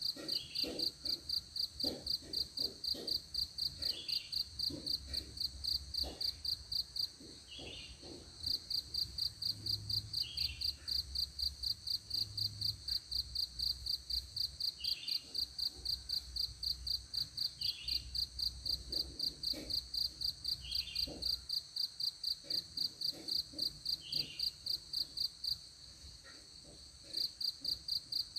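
Night insects, crickets or katydids, calling as a steady train of high chirps several times a second, which pause briefly twice. Shorter, lower calls come every second or two, and there are a few faint soft knocks.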